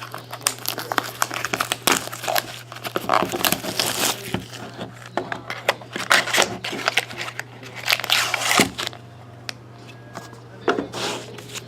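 Plastic wrapping of a trading-card mini box being torn open and crumpled by hand, a dense run of irregular crinkles and rustles that eases off for a moment near the end.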